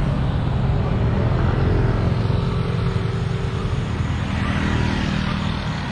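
Road traffic: cars and motorbikes driving past with a steady engine rumble. A passing vehicle's engine tone runs through the middle, and tyre hiss swells about four to five seconds in.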